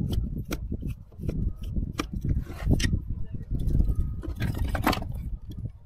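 Irregular metallic clicks and scrapes of a screwdriver working a jet loose inside a Trabant carburettor body, with the die-cast carburettor being handled, over a low rumble.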